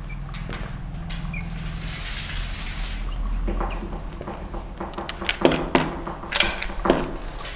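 Marker squeaking and tapping in short strokes as words are written on a glass lightboard, the strokes loudest in the second half. A low steady hum runs underneath.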